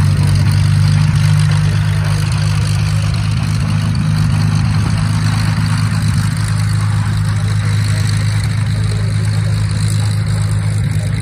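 Hawker Hurricane's Rolls-Royce Merlin V12 engine running at low taxiing power, a steady, deep engine note that holds level throughout.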